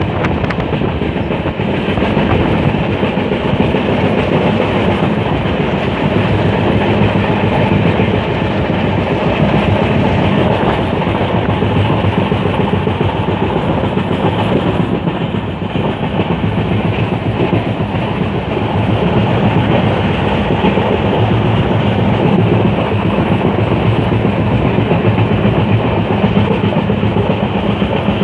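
Indian Railways passenger train running along the track: steady noise of the coaches' wheels on the rails, loud and close, heard from an open coach window.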